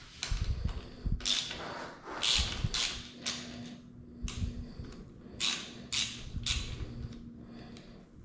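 Hand tool tightening the clamp bolts of the brake lever and controls on an electric dirt bike's handlebar: a string of about nine short scraping strokes at an uneven pace.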